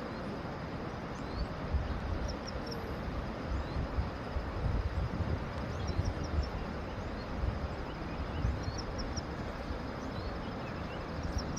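Steady outdoor rushing noise with uneven low rumbles, and small birds chirping faintly in short runs of quick chirps.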